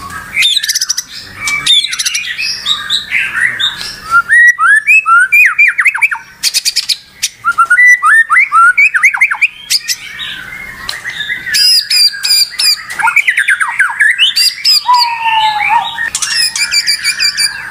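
White-rumped shama in full song: a long, varied run of loud whistles, sweeping slurred notes, fast high trills and harsh squawking notes, one phrase after another.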